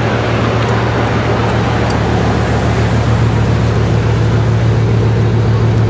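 Bugatti Veyron Grand Sport's quad-turbo W16 engine running as the car rolls slowly along the street, a steady low drone that swells a little about two seconds in.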